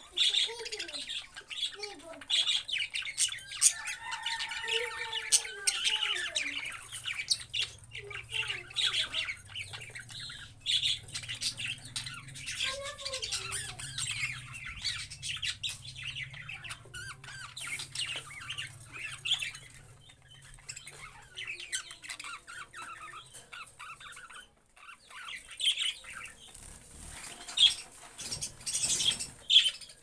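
A flock of budgerigars chattering, with many short, rapid chirps and calls overlapping, busiest in the first half and pausing briefly about three quarters through.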